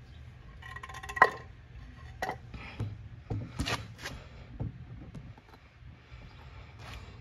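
Scattered clicks, taps and knocks of plastic car interior trim being handled and fitted back in place, with one sharp ringing clink about a second in, over a low steady hum.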